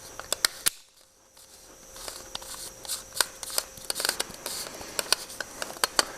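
Irregular small clicks and scraping of shotgun and kit parts being handled, as the fine-threaded forearm retaining ring is screwed onto the Mossberg 500's magazine tube by hand. The sound cuts out briefly about a second in.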